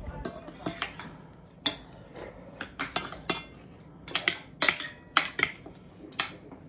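Forks and spoons clinking and scraping against dinner plates while two people eat, in irregular, sharp clinks.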